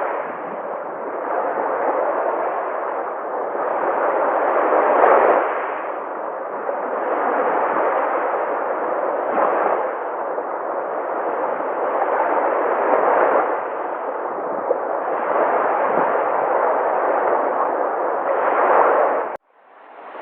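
Sea waves breaking and washing in, a steady rush that swells with each wave every few seconds. Near the end it cuts off abruptly and a different surf recording fades in.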